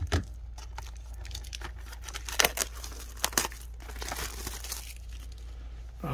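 Wrapping on a box of trading cards being slit with a razor blade and torn open: continuous crinkling and tearing with scattered clicks, and two louder cracks about two and a half and three and a half seconds in.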